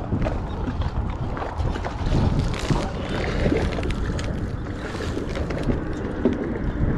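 Wind buffeting the microphone in a steady low rumble, with rustling and small knocks of the camera being handled and bumped as the wearer bends over.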